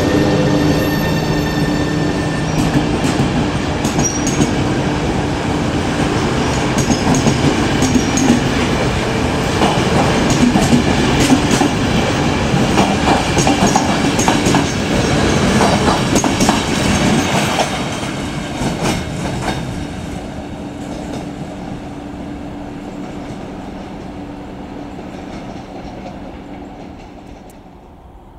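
Passenger coaches of a departing express train rolling past on the track, wheels clicking over rail joints with some high squeals. The sound fades steadily from about two-thirds of the way in as the last coach moves away.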